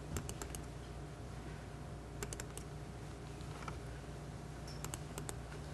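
Faint clicks of a laptop being operated, in a few short runs of two to four quick clicks, over a low steady hum of room tone.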